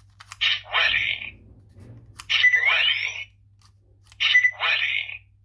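Electronic sound effects from a replica Faiz Pointer toy's small speaker: three short bursts, the second with a rising whistle-like tone, playing one of its chip-insertion sound sets. A faint steady low hum runs under it.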